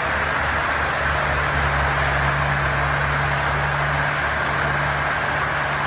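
Sawmill machine running steadily: a constant low engine hum under an even rushing noise.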